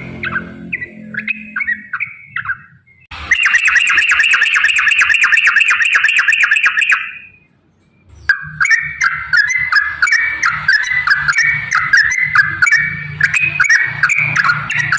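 Yellow-vented bulbuls chattering. About three seconds in, a long rapid trill runs for about four seconds and stops abruptly. After a second's break, fast chattering notes resume.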